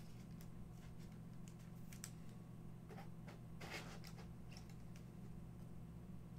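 Faint clicks and rustles of a trading card in a clear plastic holder being handled, a few of them about two to four seconds in, over a steady low hum.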